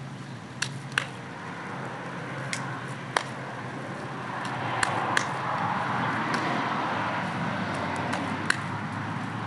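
Light clicks and taps of dishes and utensils being handled at a table, single knocks scattered a second or more apart, over a steady outdoor hiss that grows louder in the middle.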